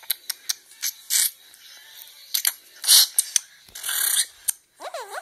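Clicks, clacks and short bursts of hiss from a stuffed-animal mock fight, with a brief warbling tone near the end; these are the weird sounds asked about just afterwards.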